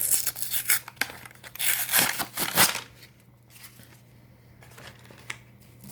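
A Yu-Gi-Oh foil booster pack being torn open, with crinkling and tearing in several rustling bursts over the first three seconds, then quieter handling with a single faint click.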